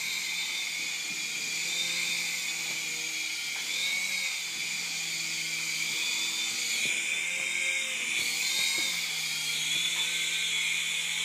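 Cheap two-channel mini RC helicopter in flight: the steady, high-pitched whine of its tiny electric motors and rotors, the pitch rising and dipping slightly now and then.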